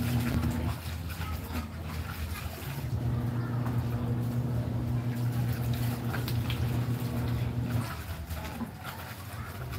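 Clothes being scrubbed and swished by hand in a basin of water, with scattered small splashes and rubbing. A steady low motor hum runs underneath, dropping out briefly near the start and stopping near the end.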